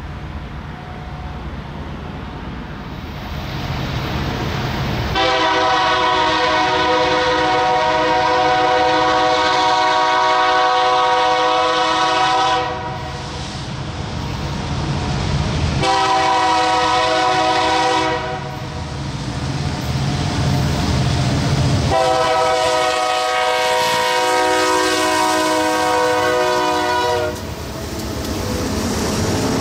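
Air horn of the lead BNSF diesel locomotive on a loaded coal train, several notes sounding together, blown long, short, long. The locomotives' diesel engines rumble low underneath and grow louder as they pass, with wheels on the rails near the end.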